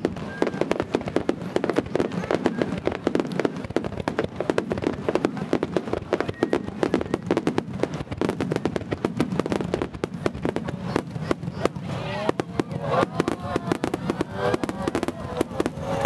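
A star mine fireworks barrage, with shells launching and bursting in quick, continuous succession: many sharp bangs a second, overlapping with no pause.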